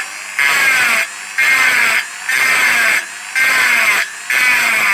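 Small rotary tool with a round burr bit texturing a metal motorcycle engine cover, applied in short repeated strokes about once a second. Its whine drops in pitch each time the bit bites into the metal.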